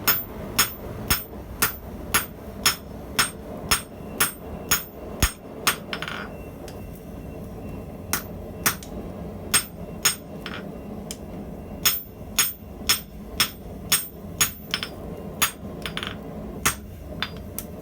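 Hand forging hammer striking a hot steel claw-hammer head on an anvil: steady, ringing blows about two a second, in several runs with short pauses between them.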